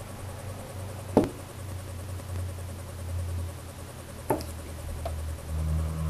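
Quiet room tone with a low steady hum, broken by two faint short clicks, one about a second in and another a little past four seconds.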